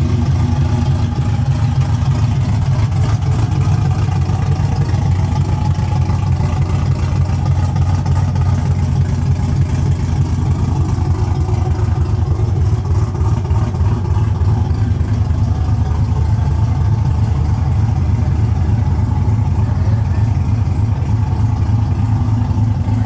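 Pickup truck cruising at highway speed, heard as a steady low engine and road drone.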